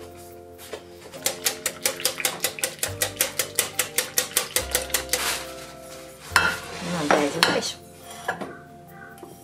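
Wire whisk beating thin, still-liquid cheesecake batter in a glass bowl, clinking against the bowl about five times a second. Then, a little past halfway, a louder clatter of kitchenware being handled.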